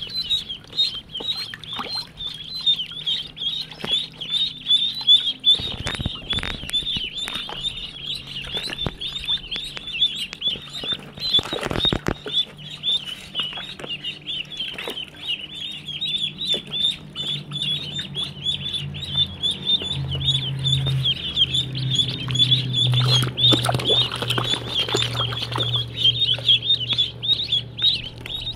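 A large flock of domestic ducklings peeping nonstop, many short high calls overlapping into a dense chorus.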